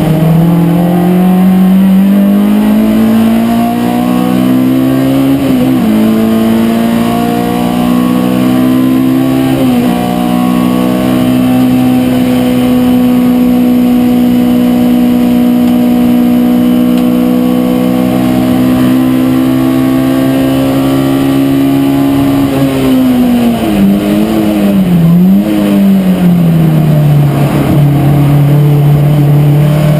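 Race car engine heard from inside the cockpit, pulling hard with two upshifts, each a quick drop in pitch, in the first ten seconds. It then holds steady at high revs for about twelve seconds. Near the end the revs fall, with quick blips on the downshifts under braking.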